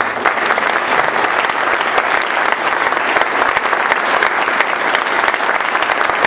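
Audience applauding: many hands clapping at once, steady in level.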